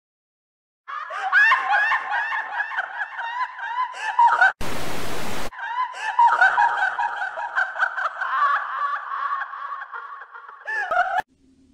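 Dense, rapid chatter of short high squeals and chirps, like many voices cackling at once, starting about a second in and cutting off abruptly near the end. About four and a half seconds in, a burst of static hiss blots it out for about a second.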